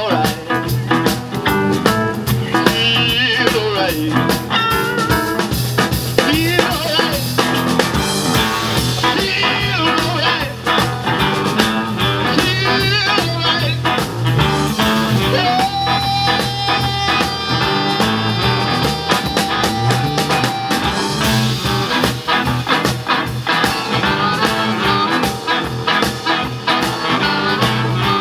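Live blues band playing a driving boogie shuffle: drums, bass, electric guitar and keyboard, with amplified blues harmonica played through a cupped microphone and a tenor saxophone. About halfway through, one instrument holds a long steady note for several seconds.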